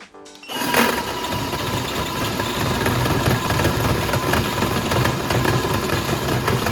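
Small electric motor of a toy appliance overdriven on high voltage, starting with a sharp crack about half a second in and then running hard with a loud, steady rattling buzz.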